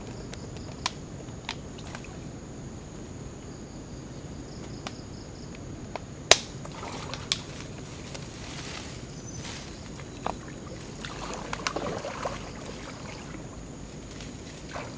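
Shallow floodwater sloshing and splashing as a person kneels and moves in it, with leaves rustling and a few sharp clicks and taps, the loudest about six seconds in.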